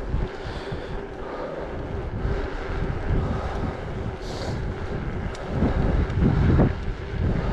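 Wind buffeting the microphone of a camera riding on a mountain bike as it rolls along an asphalt road, a gusty low rumble that swells about six seconds in.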